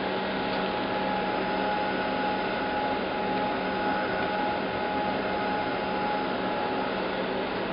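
Daewoo Lynx 210LC CNC turning center running with its spindle turning slowly at 100 RPM: a steady machine hum with a faint steady whine.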